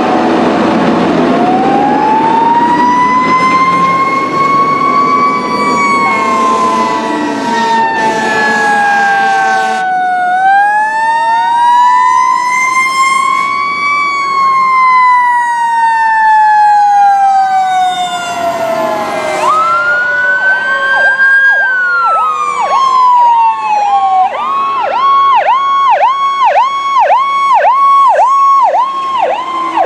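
Fire engine and ambulance sirens on an emergency response: slow wails rising and falling, with air horn blasts from about a quarter of the way in for a few seconds and a mechanical siren's long coasting fall under them. Near the end a fast electronic siren sweeps up and down about twice a second.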